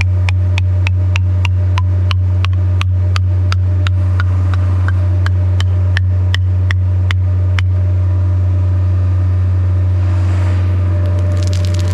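Engine of heavy tree-work equipment running steadily with a loud low hum, with a rapid regular ticking, about four clicks a second, that stops about eight seconds in. A rush of crackling noise comes in near the end.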